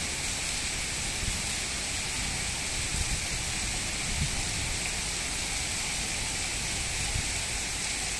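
Heavy rain falling steadily on trees and ground: a constant, even hiss.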